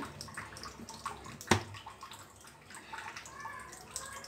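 Deep-frying oil heating in a steel kadai on a gas stove, with faint crackling and scattered small ticks. One sharp knock comes about a second and a half in.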